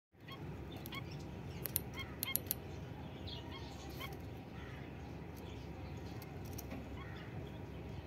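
Jumbo zebra finches calling in a wire cage: short nasal honking calls, most of them in the first half, with a few sharp clicks among them near the two-second mark.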